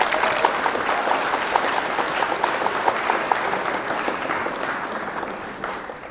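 An audience of students and teachers applauding with many hands clapping. The applause fades away near the end.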